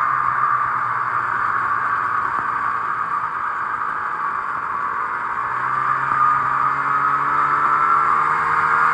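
Snowmobile engine running while under way, with a steady high whine over it. The engine note eases off around the middle, then climbs again as it speeds back up.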